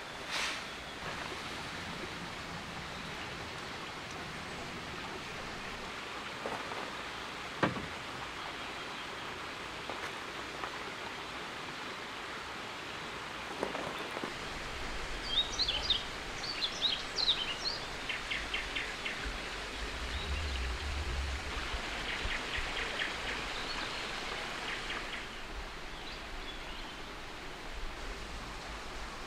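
Outdoor ambience: a steady hiss with a few sharp knocks, and a bird calling from about halfway in, first quick chirps and then a rapid trill.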